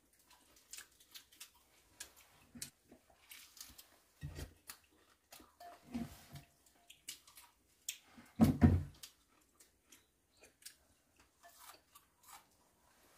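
Quiet eating at a table: spoons clicking and scraping against bowls, with chewing. A few short low sounds stand out, the loudest about eight and a half seconds in.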